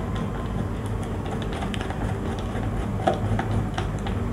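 Screwdriver turning a terminal screw on a magnetic contactor to clamp a wire: faint scattered clicks and scrapes, over a steady low hum.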